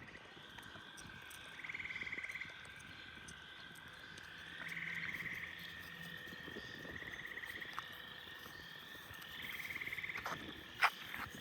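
Frogs calling: a faint pulsed trill about a second long, repeated four times every two to three seconds over a steady background chorus. A couple of sharp clicks come near the end.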